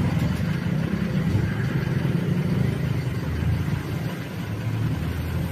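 Motor vehicle engine running steadily close by, a continuous low engine sound.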